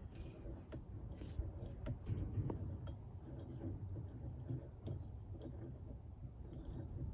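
Scattered light clicks and taps of hand tools and metal parts as a control lever assembly is worked apart, over a steady low rumble.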